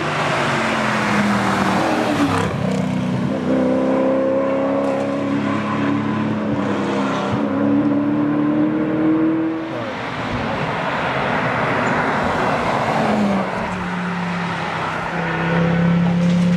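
Tarmac rally cars at full throttle, engine notes rising under acceleration and dropping at each gear change or lift, with a short lift off about ten seconds in before a car comes up the road at speed.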